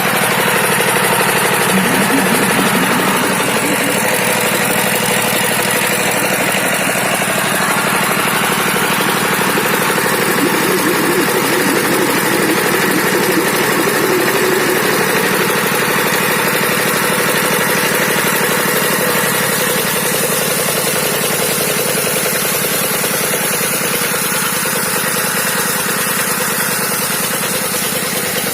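Dongfeng 12 HP single-cylinder diesel engine running steadily, driving an NS 100 irrigation water pump.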